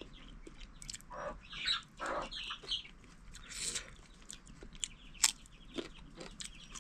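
Chickens clucking, with a few sharp clicks and knocks in between.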